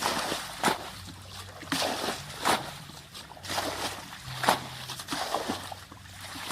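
Water splashing and sloshing, with sharp splashes coming irregularly about a second apart.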